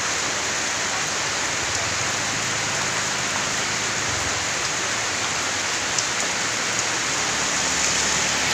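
Heavy rain pouring down on a street, a steady, even hiss.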